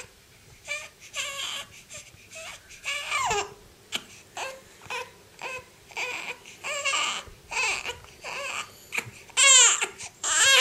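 Young infant fussing and crying while lying on his tummy, in short repeated cries that turn into louder wails near the end.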